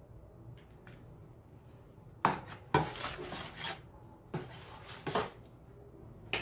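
Metal spoon clinking against a plastic basin and stirring soapy water, mixing in a spoonful of hydrogen peroxide: a few sharp clinks about two seconds in with a second of swishing after, then more clinks and swishing about four and a half and five seconds in.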